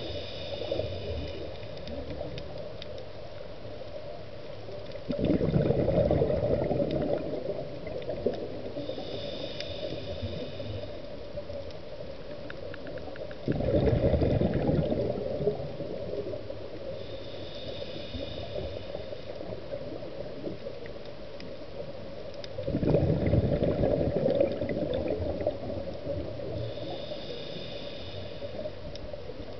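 Scuba diver breathing through a regulator underwater: a short hiss on each inhale, then a loud bubbling exhale, in a slow rhythm of about one breath every eight to nine seconds. Three exhales are heard.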